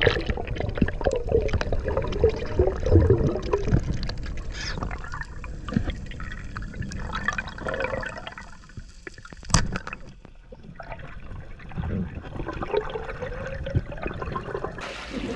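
Muffled underwater sound from a speargun-mounted camera: water rushing and bubbling as a freediver moves, with scattered clicks and knocks, a sharp one about ten seconds in.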